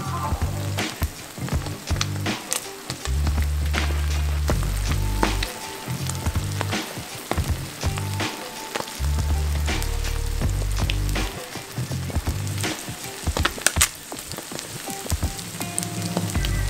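A whitebait-and-egg fritter sizzling in hot oil in a frying pan, with scattered small pops throughout. Background music with a low bass line plays underneath.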